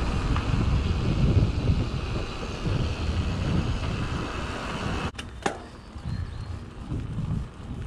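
Wind rushing over the microphone and mountain bike tyres rolling fast on asphalt. About five seconds in the sound drops out briefly with a sharp click, then the rolling noise goes on quieter.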